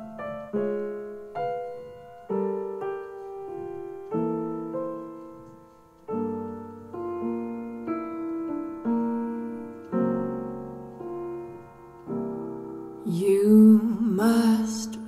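Piano playing a slow, gentle melody of single notes and chords that ring and die away. A singing voice comes in over the piano about two seconds before the end.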